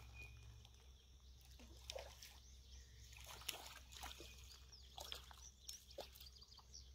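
Near silence: faint outdoor riverside ambience with scattered small clicks and ticks, and a few faint high chirps in the second half.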